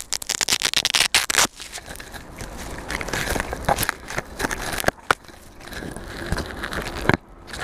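Handling noise picked up by a crashed quadcopter's own camera as it is carried: crackling, rubbing and knocking of the drone against clothing, netting and leaves, with a fast run of clicks in the first second and a half.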